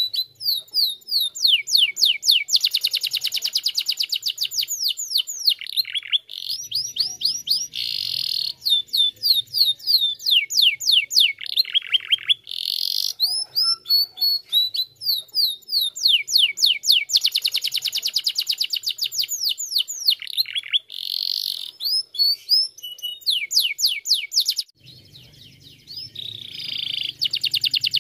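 Yellow domestic canary singing in long, rapid trilled phrases of repeated falling notes, with a few brief pauses between phrases.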